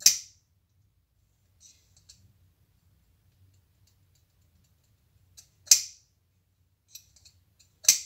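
Spring-loaded blade of a handmade Soviet automatic (flip-out) folding knife snapping into place with a sharp metallic click, three loud snaps: at the start, about six seconds in and at the end. Lighter clicks from working the mechanism come in between.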